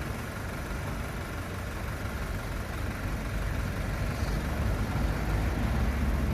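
BMW 320i's 2.0-litre turbocharged N20 four-cylinder engine running at a steady idle, a low rumble that grows slightly louder about four seconds in.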